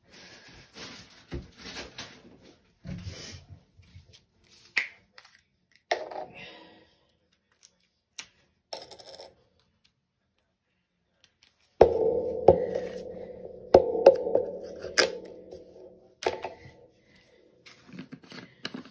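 Kitchen handling noises: scattered light clicks and taps, then, a little past the middle, several sharp metallic clanks that each ring on for a moment before fading, then a few more taps.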